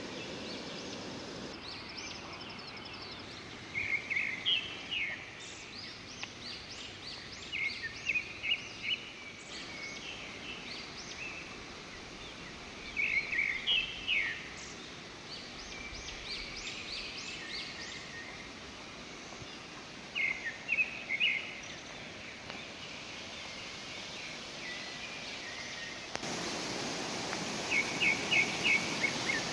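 Small birds chirping in short bursts of quick notes every few seconds over the steady rush of a river. Near the end the rushing water grows louder.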